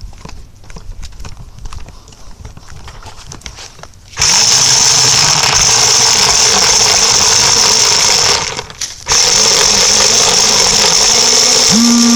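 Light crackling and knocking, then about four seconds in a loud, high electric-motor whine from an RC truck's motor and gears as it drives, its low pitch wavering with speed. The whine cuts out briefly a little past halfway and then resumes.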